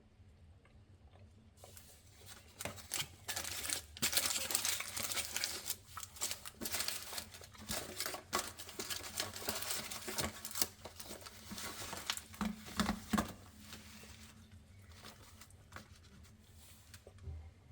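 Chocolate bar wrapper crinkling as it is handled. The crinkling starts about two seconds in and dies down a few seconds before the end.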